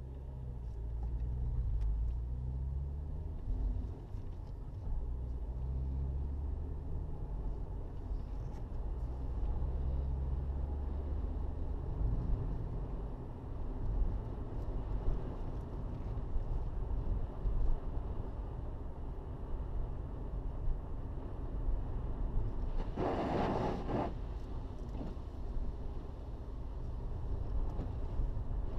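Car driving, heard from inside the cabin: a steady low rumble of engine and tyres. About three-quarters of the way through comes a brief, louder rush of hiss lasting about a second.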